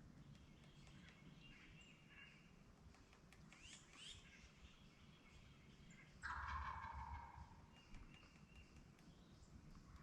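A wild turkey tom gobbles once, about six seconds in: a single rattling gobble of just over a second, the loudest sound here. Fainter songbird chirps come earlier.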